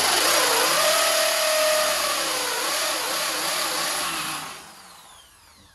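Handheld power tool running under load for about four and a half seconds, its motor pitch dipping and wavering as it bites, then spinning down with a falling whine once released.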